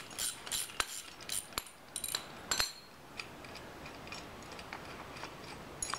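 Hand ratchet wrench clicking in quick, regular strokes as a bolt is loosened by hand. About two and a half seconds in the clicking stops, leaving only a few faint metal clinks.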